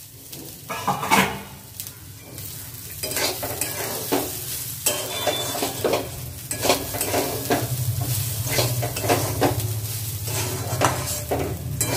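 Soaked rice with vegetables and whole spices frying in a stainless-steel kadai, stirred with a spatula: repeated scraping strokes against the pan over a light sizzle.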